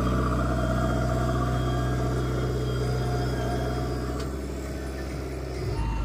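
JCB 3DX backhoe loader's diesel engine running steadily, with the sound changing near the end.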